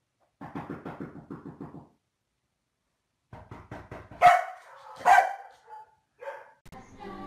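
A Komondor makes low, rapid rattling growls, then barks loudly twice about a second apart, followed by a couple of softer barks.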